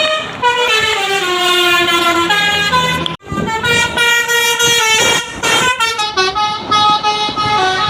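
Tour bus telolet horn playing a tune of stepped notes that falls in pitch over the first three seconds. It breaks off suddenly about three seconds in, then starts again with more notes and a short burst of rushing noise in the middle.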